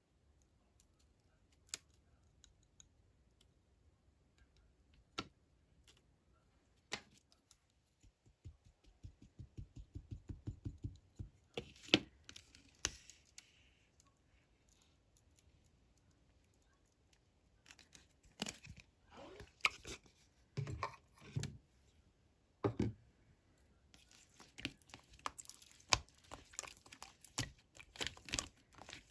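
Clear slime being squished and stretched by hand: scattered sharp sticky clicks and pops, a quick run of small pops about nine seconds in, and denser crackling clicks over the last few seconds.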